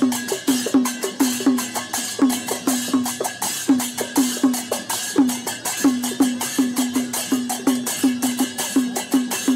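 Percussion music: fast, steady strokes on a tuned drum, each stroke dropping slightly in pitch, with sharp clicking strokes layered over them.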